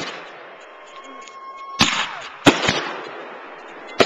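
Fireworks going off: a thin steady whistle lasts under a second, then sharp bangs come about two seconds in, two more follow close together, and another comes near the end.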